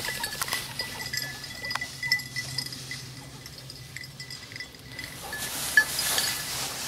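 Small bell on a hunting dog's collar clinking irregularly as the dog moves through cover, with one louder clink near the end.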